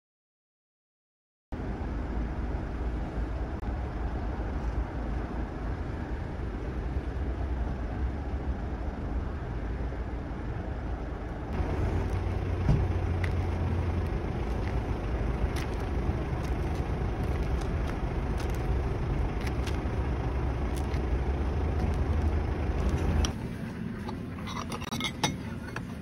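Steady low outdoor rumble with no distinct events, changing character about halfway through and growing quieter near the end.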